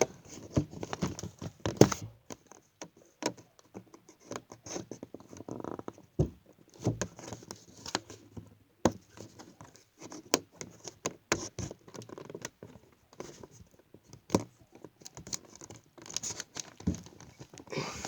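Hands working to open a toy truck's retail packaging: irregular clicks, taps and scratches of plastic and cardboard, with some crinkling and tearing.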